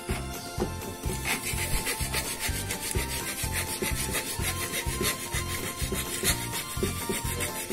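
Quick, repeated back-and-forth rasping strokes of a hand file or small saw working a pipe fitting clamped in a bench vise, starting about a second in. Background music with a steady beat runs underneath.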